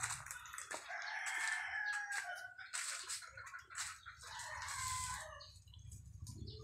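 Rooster crowing: one drawn-out crow of about two seconds that falls slightly in pitch, then a shorter call about four and a half seconds in.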